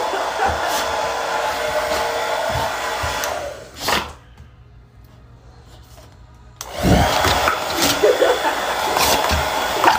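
Pit bull-type dog making long, hoarse, scream-like vocalizations that sound unlike a dog: one held for about three and a half seconds, a short sharp sound near four seconds, a pause, then another long one from about seven seconds in.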